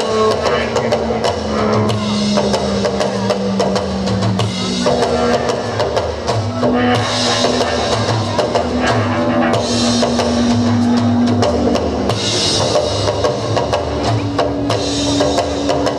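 Live amplified band playing, with a drum kit beating steadily under long held low notes and cymbal washes every few seconds.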